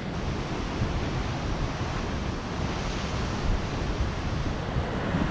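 Ocean surf washing and breaking against rocks, a steady rushing wash, with wind buffeting the microphone.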